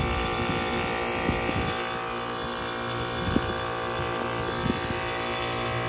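A heat pump outdoor unit running with a steady mechanical hum while its ice-packed coil thaws. A few soft knocks come through.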